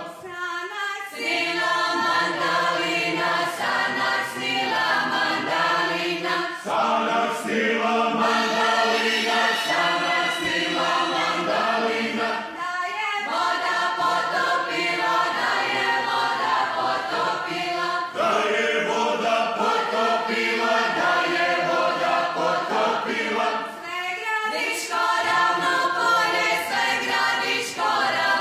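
A group of men and women from a Slavonian folk ensemble singing together in traditional village style. The song goes in phrases of about five to six seconds, with short breaks for breath between them.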